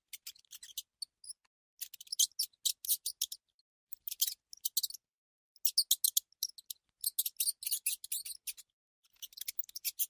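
Recorded mouse squeaks played by an on-screen cat game: bursts of rapid, very high-pitched squeaking and chittering, in clusters about a second long with short pauses between them.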